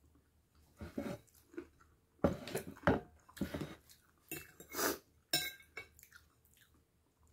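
Chewing and mouth sounds while eating fried banana with minced pork, in irregular bursts, with a utensil clicking against a plate.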